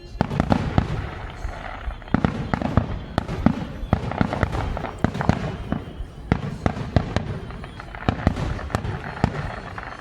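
Aerial fireworks going off in rapid succession: many sharp booms and crackling reports, densest through the middle of the stretch.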